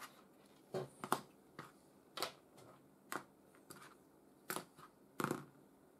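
Hands handling 3D-printed plastic parts and small hand tools on a work mat, setting them down: about ten light, irregular knocks and clicks.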